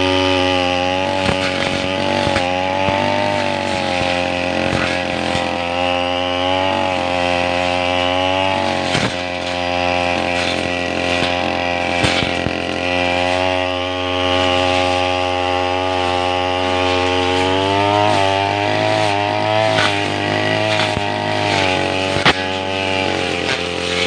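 Two-stroke brush cutter engine running hard while cutting grass, its pitch wavering up and down a little as the load changes, with scattered sharp ticks from the cutting head striking stems and debris.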